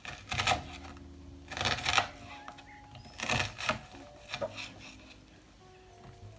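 A series of short scraping or rustling noises, four of them about a second apart, over faint soft music with held notes.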